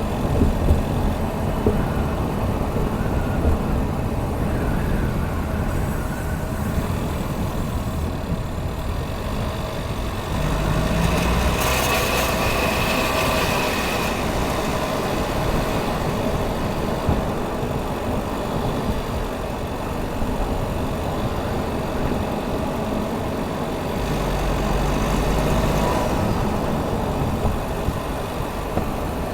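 2019 Chevrolet Equinox running with a steady low rumble. Twice it gets louder with a tone over it, about ten seconds in and again about twenty-four seconds in; the first time a thin high tone and hiss join in for a couple of seconds.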